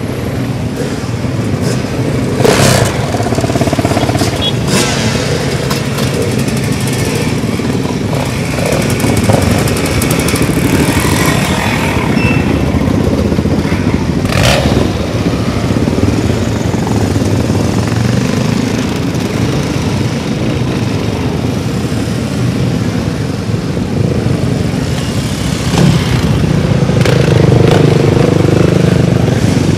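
A procession of dual-sport and dirt motorcycles riding slowly past one after another, their engines running together in a steady mass, with a few sharp blips along the way. The engine sound grows louder near the end as bikes pass close.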